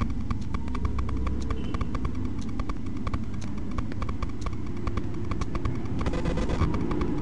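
Military convoy trucks passing on the highway: a low, steady rumble that swells briefly about six seconds in. A fast, regular ticking of about six clicks a second sits on top of it.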